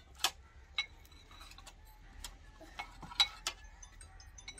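Metal spoons clinking against ceramic bowls and cups as the dishes are set out: a series of short, sharp clinks with a brief ring, the loudest a little after three seconds in.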